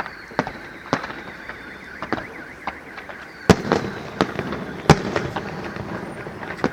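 Fireworks display: irregular sharp bangs of shells bursting with crackling between them, the two loudest about three and a half and five seconds in. A faint high whistle glides down near the start.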